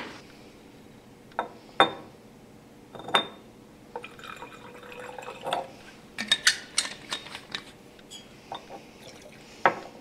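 Buffer solution poured into a glass Erlenmeyer flask, with a few sharp, ringing glass clinks and a run of small ticks and liquid sounds during the pour.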